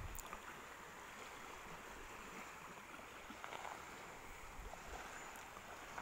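Quiet lakeshore ambience: a faint, steady hiss of small waves washing on the sand, with a few soft ticks.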